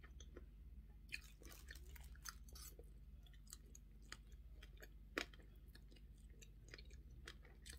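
Faint close-up eating sounds: a woman chewing and slurping fried spaghetti off a fork. Many small wet mouth clicks, with one sharper click about five seconds in.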